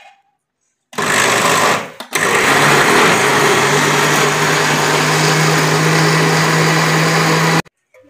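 Electric blender motor blending strawberries, bananas, milk and sugar into a shake: a short run starting about a second in, a brief stop, then a steady run of about five and a half seconds that cuts off sharply near the end.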